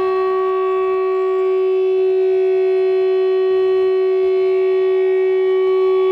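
Electric guitar feedback through an amplifier, held as one steady, unbroken drone tone with a stack of overtones. The upper overtones thin out about a second and a half in.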